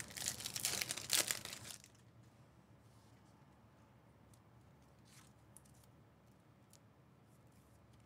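Trading card pack wrapper being torn open, crinkling and tearing for about two seconds. A few faint ticks follow.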